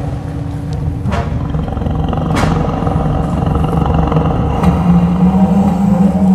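Low rumbling drone of a film sound effect, slowly swelling in loudness, with a few sharp cracks cutting across it, the strongest about two and a half seconds in.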